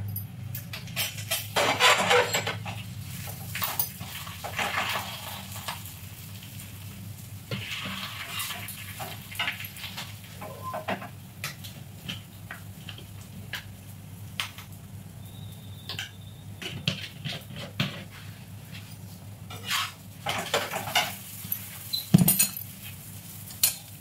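Kitchen clatter of metal utensils: a metal spatula knocking and scraping on an iron tawa, with clinks of jars and containers, over a steady low hum. A few sharper clacks come near the end.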